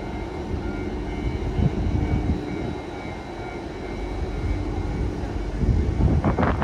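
Taiwan Railways R200 diesel-electric locomotive running at idle while it is turned on a turntable: a steady low engine drone with a faint hum. A short louder burst of noise comes near the end.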